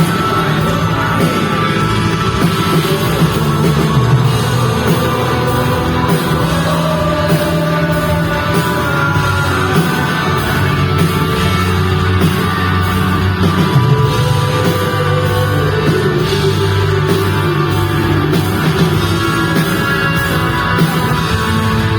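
Live pop rock band playing, with a lead vocal line over steady bass and guitar.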